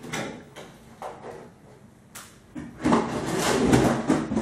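A lidded storage box being slid across a hard floor: a few light taps and rustles, then a loud scraping drag lasting about a second and a half near the end.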